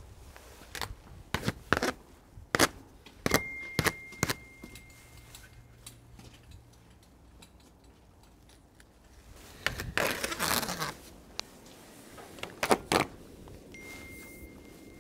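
Scattered clicks, clinks and knocks of hand work on a steel door jamb and its flashing tape, with a longer rustling scrape about ten seconds in.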